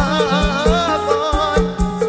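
Live Isan mor lam band music: a drum kit keeps a steady quick beat over a bass line, under a winding lead melody.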